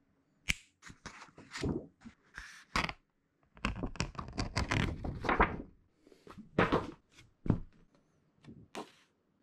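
Paper handling: a pad of comic book art boards is opened and a sheet slid out, making irregular rustling and sliding, with short knocks and thunks as the boards and a hardboard clipboard are handled. The longest stretch of rustling falls a little before the middle.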